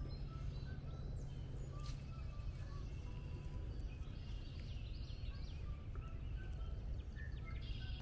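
Small birds chirping and trilling over a steady low rumble, with a burst of high trills about halfway through.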